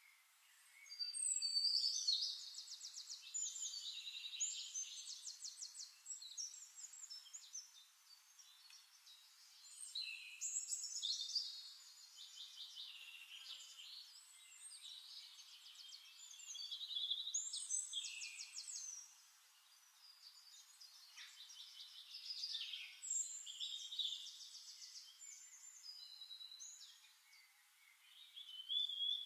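Songbird singing: high, rapid trilled and whistled phrases in bouts of a few seconds, coming back about every six seconds.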